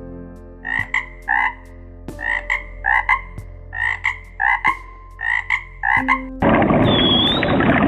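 A frog croaking: a run of short, clipped calls, mostly in quick pairs, over a steady background drone. About six and a half seconds in it gives way to a different, noisy recording with a brief high whistle.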